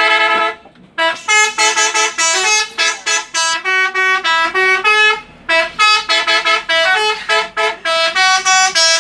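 Nusa Bhakti bus's multi-tone telolet horn playing a fast melody of short, pitched honks. One long note comes first, then a break of about half a second. After that a quick run of notes, a brief pause about five seconds in, and another quick run.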